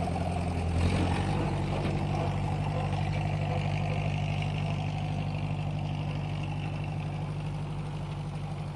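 A vehicle engine running steadily with a low, even hum. Its note shifts slightly about a second in, then it holds steady and slowly fades.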